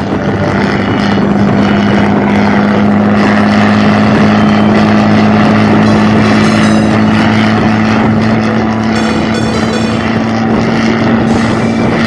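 Heavy truck engine running loud through its exhaust, a steady deep drone whose pitch creeps slowly upward.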